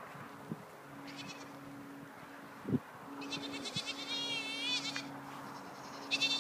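Goats bleating: a short call about a second in, then a longer quavering bleat from about three to five seconds in, and another starting near the end. A faint steady low hum lies underneath, with a single knock in the middle.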